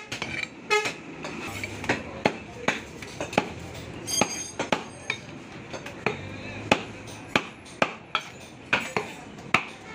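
A butcher's large knife chopping beef on a wooden chopping block: sharp knocks at an uneven pace of about two a second, with a short metallic ring about four seconds in.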